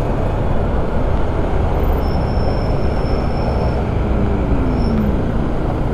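Steady road and wind noise from a motorcycle riding through city traffic, with engine sound underneath; about four seconds in, an engine note slides down in pitch.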